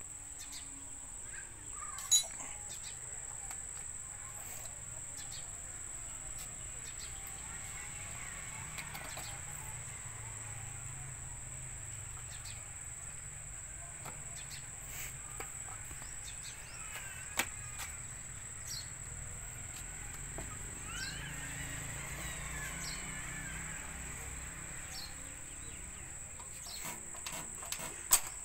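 Outdoor rural ambience: a steady high-pitched insect drone with birds chirping now and then. A few sharp clicks break through, the loudest about two seconds in and just before the end. The engine is not running.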